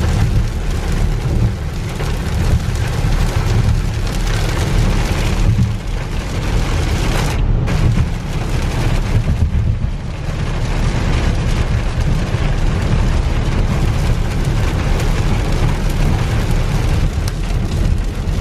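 Rain on a car's windshield and roof with a steady low rumble of road noise, heard from inside the moving car. The noise breaks off briefly about seven and a half seconds in.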